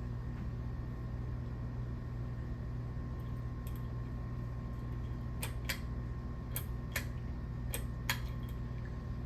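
Hampton Bay Wellston II 44-inch ceiling fan running on high speed with a steady motor hum. Several sharp clicks come in the second half.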